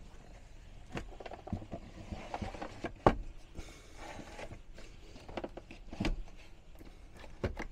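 A hinged plywood electrical panel being folded down into a battery compartment by hand: scattered knocks and clicks of wood and cables being handled, with the loudest knock about three seconds in.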